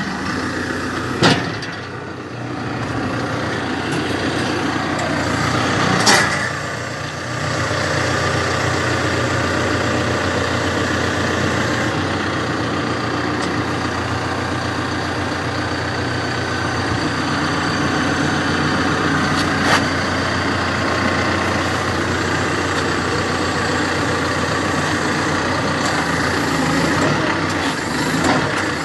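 Backhoe loader's diesel engine running steadily, its level swelling slightly twice, with three short sharp knocks, the loudest about six seconds in.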